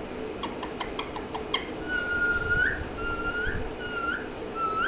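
Pet parrot whistling four separate, similar notes, each held briefly and ending in a quick upward flick, after a few short clicks.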